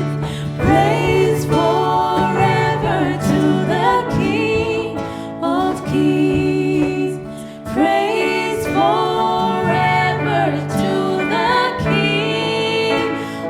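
Church worship music: voices singing a melody over sustained instrumental backing.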